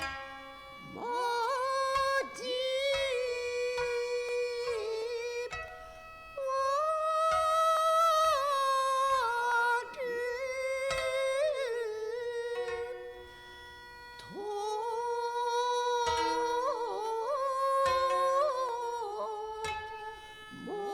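Kibigaku, traditional Japanese court-style music: a slow melody of long held notes that scoop up into each pitch and waver, over steady sustained tones, with occasional plucked string notes. The melody pauses briefly twice.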